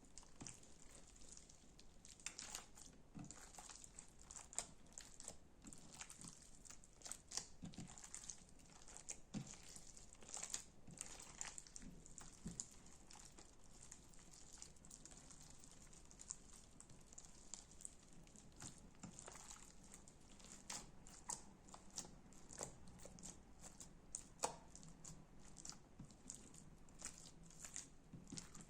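Slime squeezed and pulled by hand, giving a faint, irregular run of small crackles, clicks and sticky pops.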